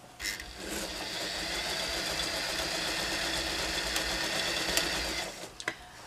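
Domestic electric sewing machine running at a steady speed, stitching the seam around a padded fabric pad; it stops a little past five seconds in, followed by a couple of light clicks.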